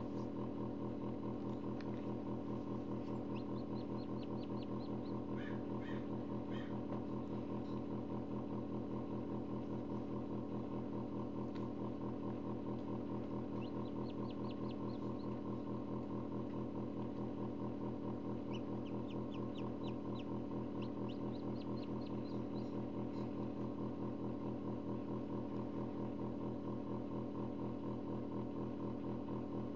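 Forced-air incubator humming loudly and steadily, with newly hatched chicks peeping in several short runs of quick high notes.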